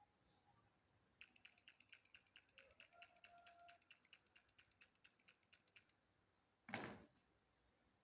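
Faint, rapid clicking, about eight clicks a second, lasting several seconds. It stops, and a short rush of noise follows near the end, the loudest sound here.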